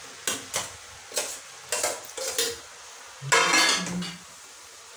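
A metal spoon clinking and scraping against a cooking pot as chopped tomatoes are tipped in and stirred into the curry masala. There is a series of short clinks, and the loudest scrape comes a bit past three seconds in.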